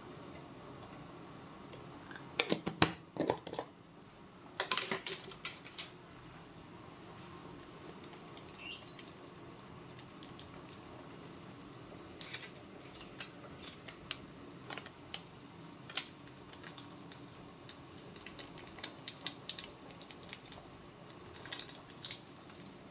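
Broth simmering in a stainless steel pot on a gas stove, with scattered small ticks and pops. A quick run of sharp clinks and knocks about two to six seconds in comes from the salt spoon and jar being handled over the pot.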